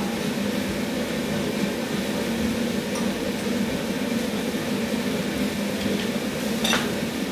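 A steady low mechanical hum, like a kitchen fan or appliance running, with a fork and knife clicking once against a plate near the end.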